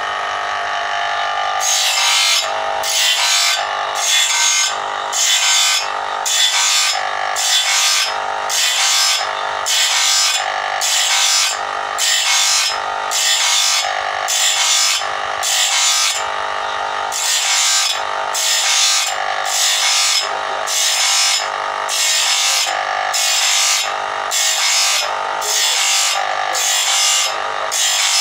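Electric grinder's abrasive wheel sharpening a sawmill band saw blade tooth by tooth: a short rasping grind repeats about one and a half times a second, starting about two seconds in, over the motor's steady hum.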